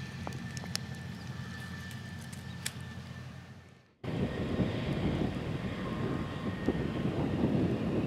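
A few crackles of dry corn-stalk residue over a low steady hum, fading out about halfway through. Then a louder, steady rush cuts in: a 470 hp Case IH Steiger 470 Rowtrac tracked tractor pulling a Yetter 3541 rotary hoe at speed, the engine together with the hoe's spoked wheels working through the crusted soil and stalks.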